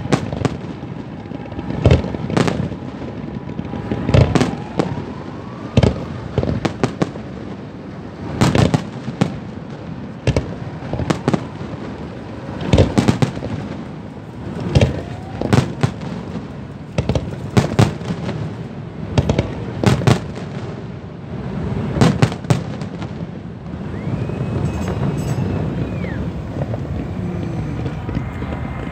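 Fireworks display: firework shells going off in a string of sharp bangs every second or two, some in quick clusters, with a few faint rising whistles between them. Near the end the bangs stop and a steady high whistle sounds for about two seconds.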